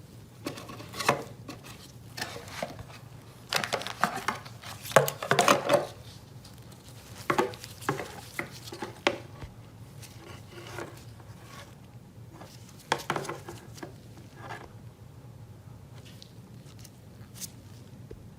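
Irregular clicks, taps and light rattles of a mobile phone being handled, in clusters with short pauses between.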